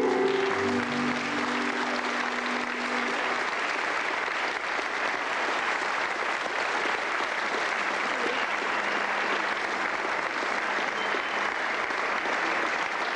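Audience applause, steady and sustained, after a live band's last held notes die away about three seconds in.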